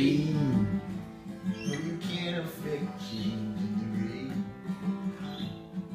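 Epiphone acoustic guitar strummed in a steady rhythm, chords ringing between sung lines. A held sung note trails off in the first second.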